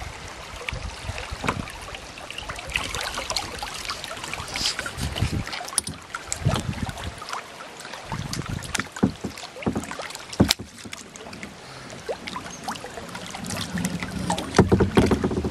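Kayak moving down a shallow, fast-flowing river: paddle strokes splashing and the current rippling around the hull, with a few sharp knocks, louder near the end.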